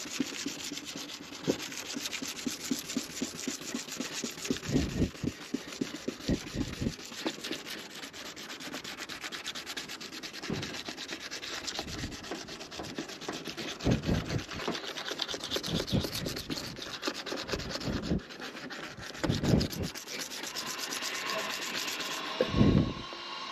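Wet-sanding an oxidised plastic headlight lens with a numbered abrasive sanding pad: a continuous scratchy rubbing, with a few short low thumps along the way. The sanding is taking off the yellowed surface layer, which washes off as yellow water until the lens comes clear.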